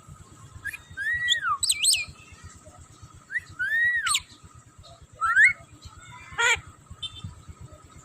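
Javan myna (jalak kebo) calling: several loud whistled notes that rise and fall, then one short harsh call about six and a half seconds in.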